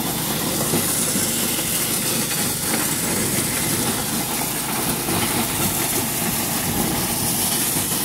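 A motorised maize sheller running: a small petrol engine drones steadily under the continuous dense rattle of dry maize going through the shelling drum.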